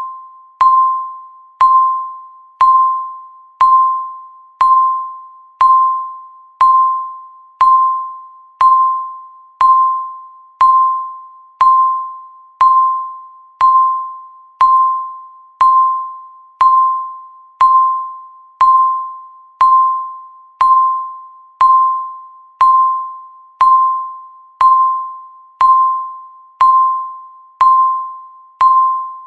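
Countdown timer beeping once a second: each beep a single clear tone that starts sharply and fades away before the next.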